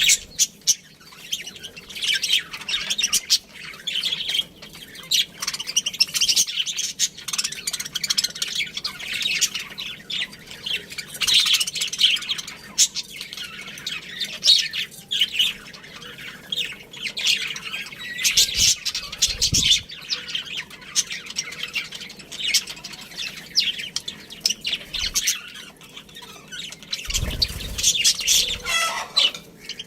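A colony of budgerigars chattering: many short, overlapping chirps and squawks with no break.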